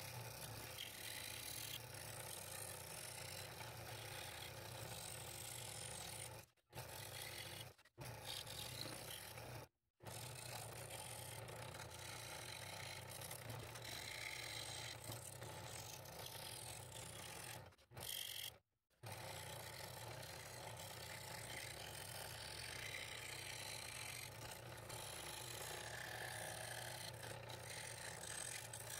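Scroll saw running with a number 3 blade, the blade stroking up and down as it cuts the fretwork pattern in the wood, a steady mechanical run with a low hum. The sound breaks off in several short silent gaps.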